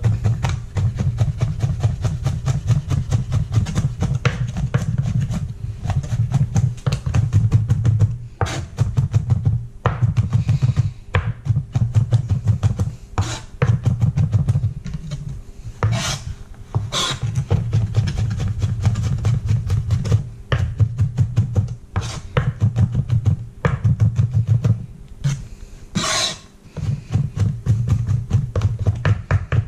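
Chef's knife rapidly chopping garlic on a plastic cutting board: quick runs of knife strikes on the board, broken by a few short pauses.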